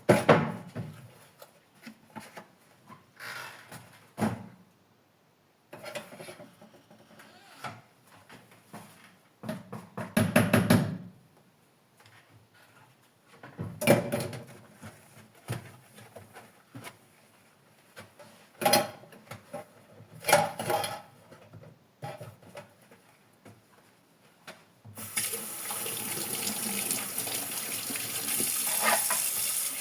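Dishes being washed in a sink: bursts of dishes being handled and water splashing, with pauses between. Near the end the tap is turned on and runs steadily.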